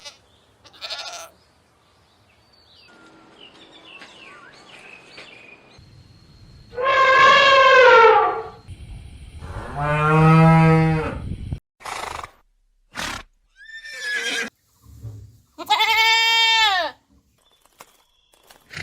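Farm-animal calls spliced one after another with abrupt cuts. Three long calls stand out, each rising and then falling in pitch, about seven, ten and sixteen seconds in. Short clips of other animal noise and brief silences fall between them.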